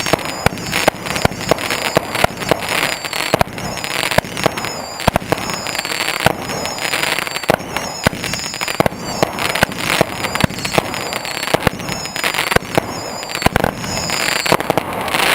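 Consumer fireworks going off in quick succession, a dense run of sharp bangs and crackling pops mixed with high, warbling whistles. The barrage dies away near the end.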